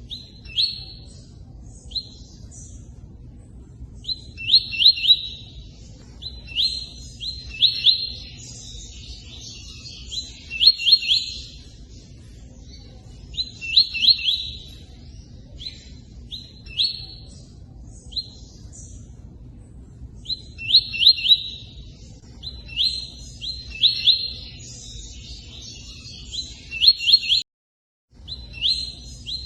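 A songbird singing the 'tui-tui' song in short, repeated high phrases every few seconds with pauses between them, over a steady low rush of running water. All sound cuts out for about half a second near the end.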